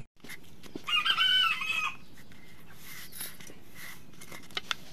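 A rooster crowing once, about a second in, for just under a second. A few sharp clicks follow near the end.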